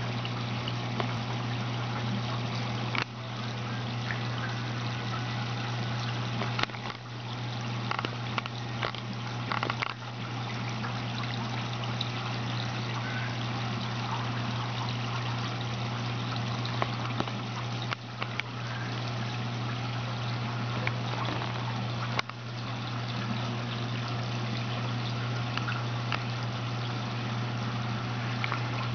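Aquarium filter running: a steady water trickle over a low motor hum, with a few faint clicks.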